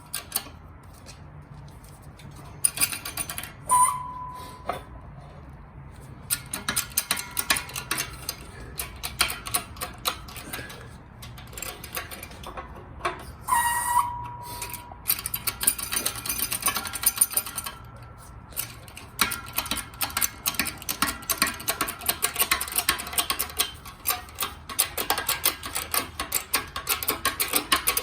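Rapid metal clicking and clinking of tools working a ball joint press against an aluminum control arm, pushing out the riveted ball joint. Two ringing metal strikes come about 4 and 14 seconds in, and the clicking grows dense in the second half.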